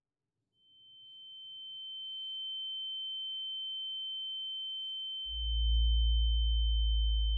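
A single steady high-pitched ringing tone fades in about half a second in and holds unchanged, a film sound effect of ringing ears. About five seconds in, a deep low drone swells in beneath it and becomes the loudest sound.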